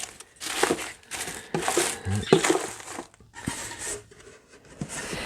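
Hands rummaging through a box of small guitar parts and packets, with crinkling and short clicks and rattles coming in irregular bursts.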